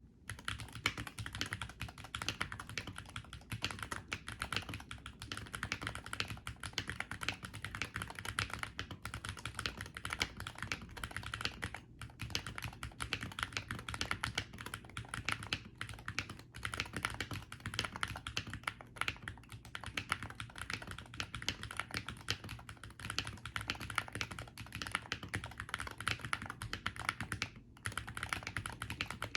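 Continuous fast typing on an aluminum-cased, gasket-mounted Akko MOD68 Hall-effect magnetic keyboard with Akko Astroaim switches and Misty keycaps: a dense stream of key clicks and clacks with brief pauses.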